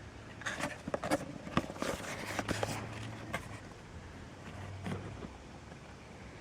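A run of small clicks and knocks with some rustling from about half a second in until about three and a half seconds, then one more knock near five seconds: hands working the Walther P38 CO2 airgun.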